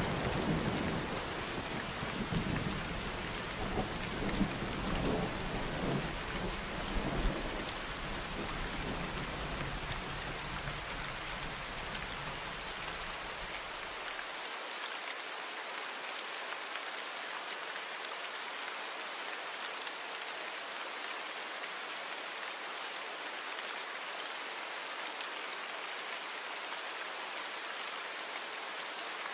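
Steady rain hiss with thunder rumbling in the first several seconds. The low rumble cuts off abruptly about halfway through, leaving only the even rain.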